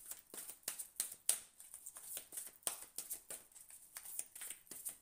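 Tarot cards being shuffled and handled: a run of quick, irregular clicks and rustles of the cards.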